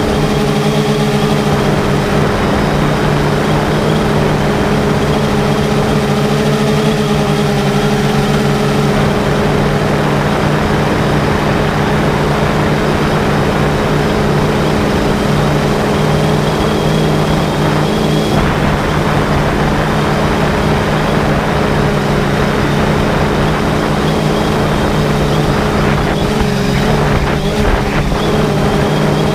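3DR Solo quadcopter's electric motors and propellers, heard from the GoPro slung beneath it, holding a loud, steady multi-tone hum over a rushing hiss. The hum shifts pitch slightly a few times near the end as the drone manoeuvres.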